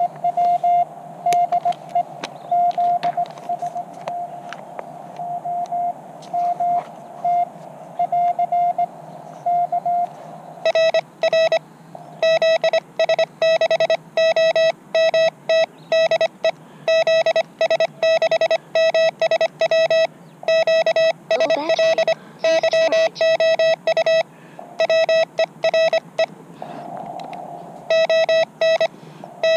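Morse code from a portable CW ham radio, a tone near 700 Hz keyed on and off in dots and dashes. For about the first ten seconds it is the plain tone of a received station being copied. From then on it changes to a buzzier keyed tone with strong overtones, the sidetone of the operator sending with a paddle.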